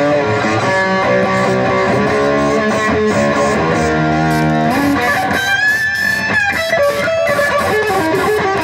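Background music led by electric guitar, with a note that slides up and is held about five seconds in.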